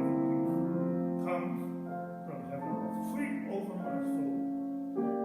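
Piano or keyboard playing slow, sustained chords, a new chord struck roughly every second or so.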